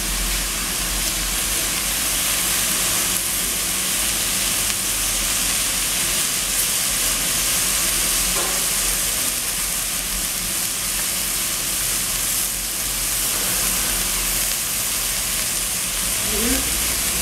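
Shredded cabbage with turmeric and onion sizzling in a metal pot over a gas burner: a steady, even hiss.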